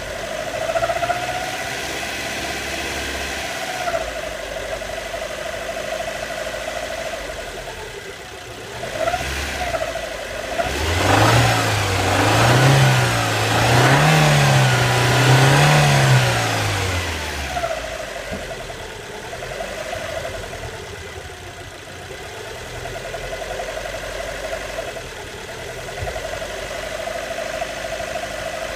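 Alfa Romeo MiTo engine running with a steady whine, revved several times in quick succession about halfway through. The owner calls it a weird engine noise and does not know its cause.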